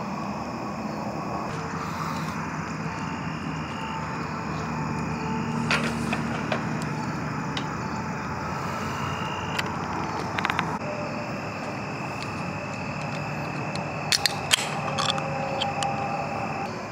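Campfire burning under a cast iron sandwich maker: a steady hiss with a few sharp snaps and clicks, a close cluster of them near the end, over a faint high insect chirring.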